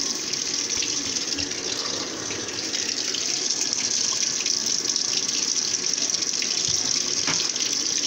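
Water pouring in steady streams from the dispenser into the tub of a Consul Maré CWL10 top-loading washing machine as it fills.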